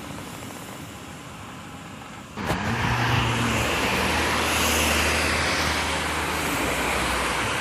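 Road traffic noise: quiet street ambience, then about two and a half seconds in a sudden jump to a loud vehicle close by, with a low engine hum and rushing road noise that carries on.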